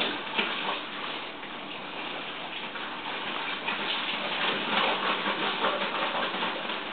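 Puppies splashing and pawing in shallow water in a plastic kiddie pool: irregular sloshing and splashes, louder in spurts.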